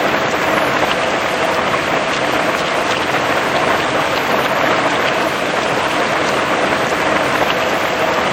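Heavy rain falling steadily on grass and tree leaves, an even hiss dotted with the ticks of single drops.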